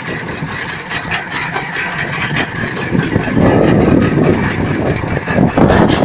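Fishing boat's engine running steadily, getting louder about halfway through.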